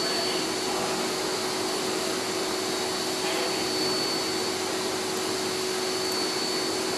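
Steady whooshing of a running fan with a constant high whine, unchanged throughout.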